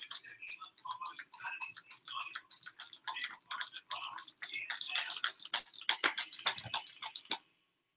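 A paper envelope waved quickly back and forth as a hand fan, making a fast run of papery flaps, several a second, that stops suddenly near the end.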